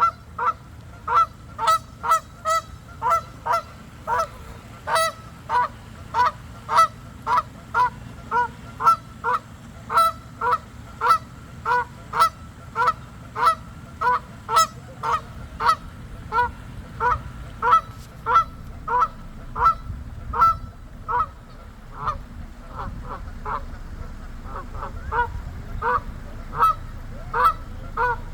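A bird repeating one short call over and over, about two calls a second in a steady rhythm, with a short lull about three-quarters of the way through.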